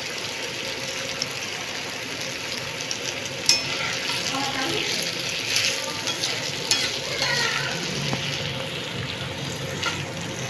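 Potato pieces sizzling steadily in hot oil on a flat griddle (tawa) while their moisture cooks off, with a metal spatula scraping and clacking against the pan as they are stirred. The sharpest clack comes about three and a half seconds in.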